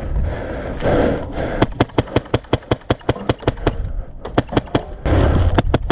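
Airsoft guns firing in fast strings of sharp cracks, about eight shots a second through the middle, with scattered single shots before and after. There are louder rushes of noise about a second in and near the end.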